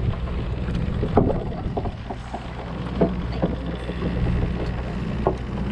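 Charter boat's engine running with a steady low hum, with a few short knocks on deck.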